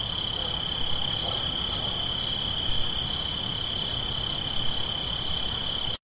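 Steady high-pitched cricket-like trill over a low hiss, cutting off suddenly at the end.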